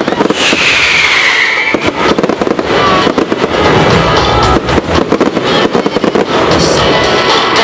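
Fireworks display: dense crackling and rapid bursting bangs over music, with a whistle falling in pitch from about half a second to nearly two seconds in.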